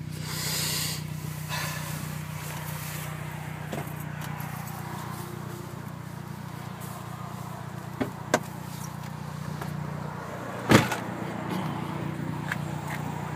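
Opel Corsa D OPC's 1.6-litre turbo four-cylinder running steadily, heard from inside the cabin, with a couple of light clicks about eight seconds in and one loud thump near the end.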